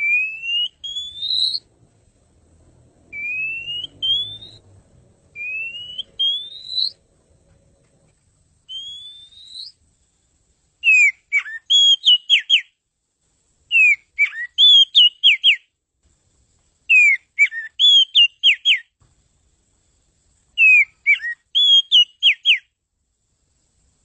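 Oriental magpie-robin singing: four long rising whistles, then a short phrase of quick, sharp up-and-down notes repeated four times at even intervals.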